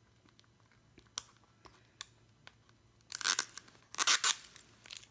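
Clear plastic wrap on a small package being picked at with a fingernail: a few light clicks, then about three seconds in two short bursts of crinkling and tearing as the wrap is pulled loose.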